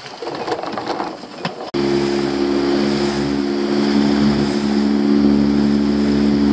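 Water rushing and splashing past a small boat's hull, then from about two seconds in the boat's Honda outboard motor running at a steady, unchanging speed under way.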